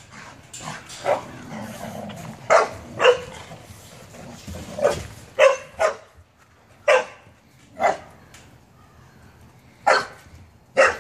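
Puppies play-barking while they wrestle: about ten short, sharp barks at uneven gaps.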